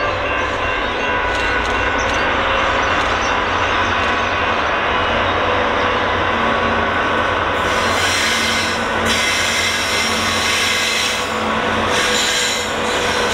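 Diesel-hauled freight train running past with a steady rumble and a steady high squeal from its wheels on the rail.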